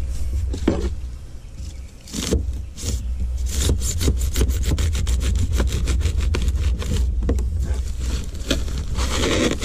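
Expanded polystyrene foam being dug, scraped and broken out by hand through an access hole in a plastic boat hull: rapid crackling clicks with squeaky rubbing and scraping. A steady low rumble runs underneath.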